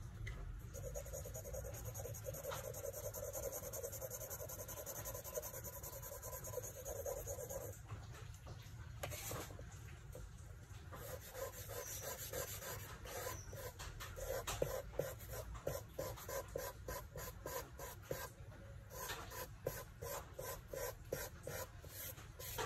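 Charcoal stick and eraser rubbing on drawing paper, steady in the first few seconds, then quick back-and-forth strokes about two or three a second through the second half.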